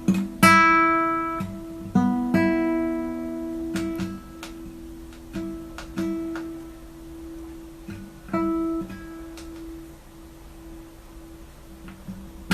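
Acoustic guitar chords strummed slowly and unevenly, each struck chord left to ring and fade; the loudest come in the first few seconds, and later ones are softer.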